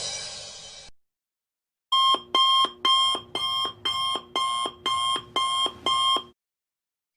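Electronic alarm beeping: about nine short, identical ringing tone pulses at roughly two a second, which start about two seconds in and stop about a second before the end. Before them, the fading tail of a crash dies away in the first second.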